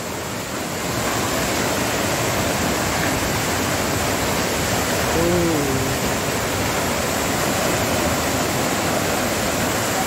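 Waterfall pouring down in a steady, unbroken rush of water. A brief voice cuts in about five seconds in.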